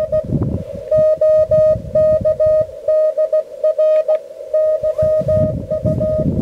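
Morse code (CW) from a portable amateur radio transceiver: one steady mid-pitched tone keyed on and off in dots and dashes. Bursts of low wind rumble on the microphone come and go beneath it.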